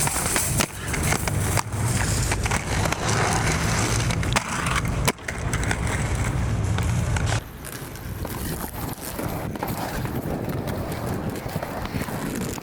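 Wheels rolling over rough pavement: a low rumble with a few sharp knocks, which cuts off about seven seconds in and leaves quieter street noise.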